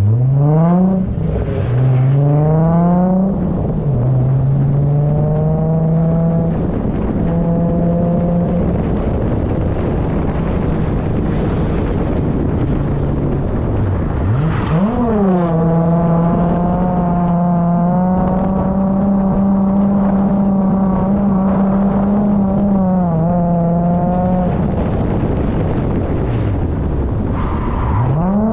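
Holden VY Commodore Calais engine under hard load while drifting. It revs up and drops back in the first few seconds, then holds at nearly steady high revs for long stretches, with a quick blip about halfway through and another dip and climb near the end, over a haze of tyre and road noise.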